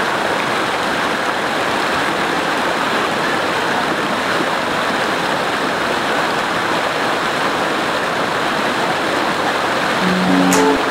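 Mountain stream rushing and splashing over rocks in small cascades, a steady even rush. Music comes in near the end.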